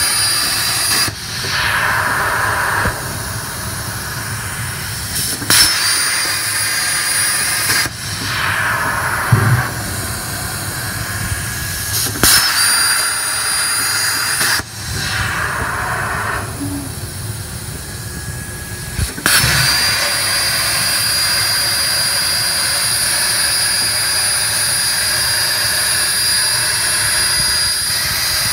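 CNC plasma cutter torch cutting steel plate: a loud, steady hissing rush with a thin high whine. It gives a few sharp clicks and sudden shifts in tone over the first two thirds, then runs steadily.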